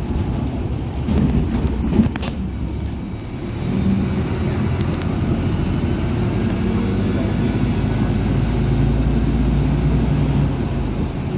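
Cabin noise inside a PAZ 320414 bus on the move: a steady low engine drone with road noise, a few sharp knocks and rattles about one to two seconds in, then the engine pulling harder from about three and a half seconds in.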